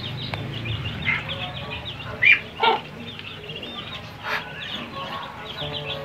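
A brood of Muscovy ducklings peeping, a steady stream of many short, high chirps. A few louder calls come a little after two seconds in and again past four seconds.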